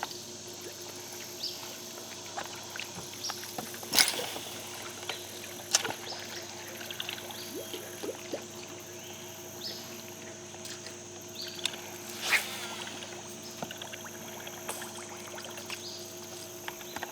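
Outdoor lake ambience heard from a fishing boat: a steady low hum and a high, even insect drone, broken by scattered sharp clicks and small knocks, the loudest about four seconds in and again about twelve seconds in.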